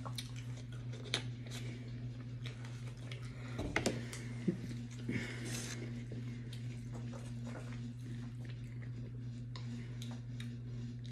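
People eating at a table: chewing, with small clicks and scrapes of a fork picking at a whole baked fish on aluminium foil, over a steady low hum.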